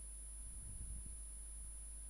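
A steady, high-pitched 10 kHz sine tone from a computer sound-card signal generator, over a faint low hum.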